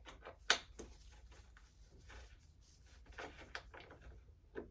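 Scattered short clicks and knocks of gloved hands working a fastener loose on a 2008 Kawasaki Ninja ZX6R's plastic mid fairing. The sharpest click comes about half a second in, a few more about three seconds in and one near the end.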